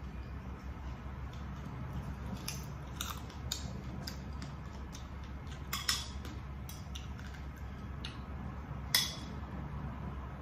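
Metal spoon clinking and scraping on a ceramic plate while eating, in scattered sharp clicks, the loudest about six and nine seconds in, over a steady low hum.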